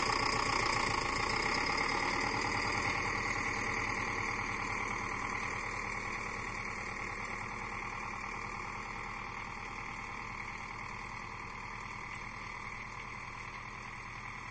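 Zetor Proxima 6421 tractor's four-cylinder diesel engine running steadily while pulling a row-crop cultivator through the soil, growing gradually fainter as it moves away.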